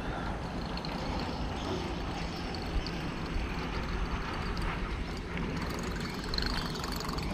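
Steady low rumble of wind buffeting the microphone, with faint outdoor background noise.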